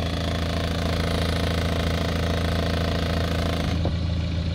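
BMW F10 520d's four-cylinder diesel idling, heard right at its twin exhaust tips: a steady, even low drone.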